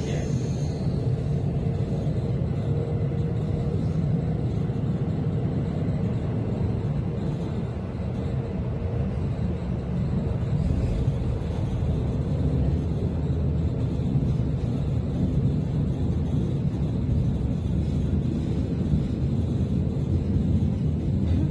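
S-Bahn train running along the track, heard from inside the carriage: a steady low rumble.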